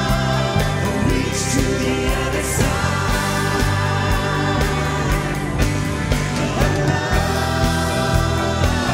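Live worship music: a band playing a steady beat under several voices singing together.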